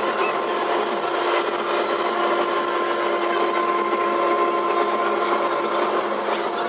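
Amusement park ride machinery running, a steady mechanical drone with a constant hum.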